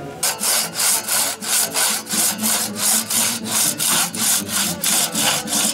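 Two-man crosscut saw cutting through a log, rasping back and forth in an even rhythm of about four strokes a second.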